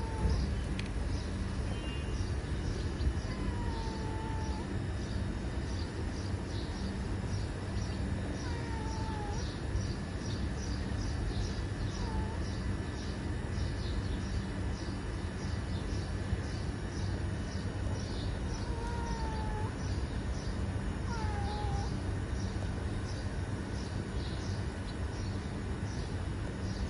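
Outdoor street ambience: a steady low rumble under quick high chirps that repeat about twice a second, with a handful of short sliding calls now and then.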